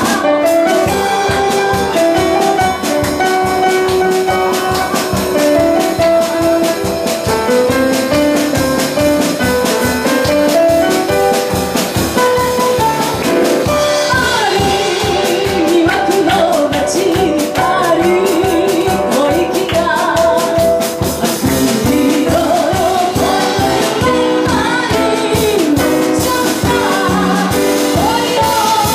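Live female vocalist singing a chanson-style song into a microphone, accompanied by piano over a steady drum beat. The first half is mostly instrumental, and her voice, with a wide vibrato, comes in strongly about halfway through.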